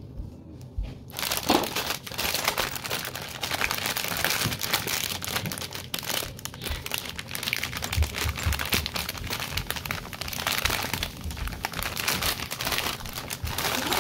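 Continuous crinkling and crackling that starts about a second in.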